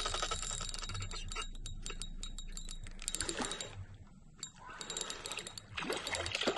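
Spinning reel being cranked as a hooked fish is reeled in: a fast run of mechanical clicks from the turning reel, easing off briefly about four seconds in.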